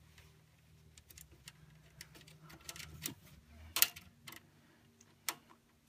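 Small screwdriver clicking and scraping against a bracket screw on a steel computer case: scattered sharp metal clicks, more frequent after a couple of seconds, the loudest about four seconds in.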